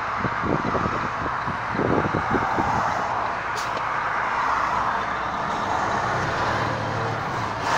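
Steady road traffic noise: cars passing on a highway, a continuous rush of tyres and engines.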